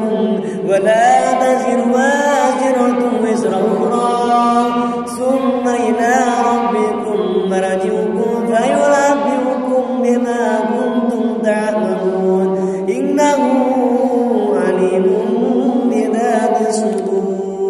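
A man chanting Quran recitation in long, drawn-out melodic phrases, his voice gliding and ornamenting between held notes, with brief breaks between phrases.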